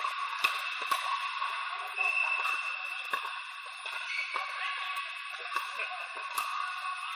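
Pickleball paddles striking the plastic ball in a rally: sharp pops, two about half a second apart near the start and a few more later, over a steady background din in a large indoor hall.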